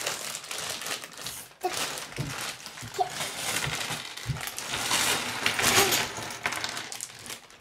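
Clear plastic parts bags crinkling as they are pulled open and handled, with K'nex pieces shifting inside. A couple of soft knocks come about two and four seconds in.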